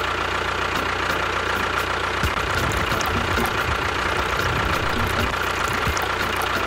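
A small motor running steadily with a thin whine. From about two seconds in to near the end, water pours and splashes onto sand.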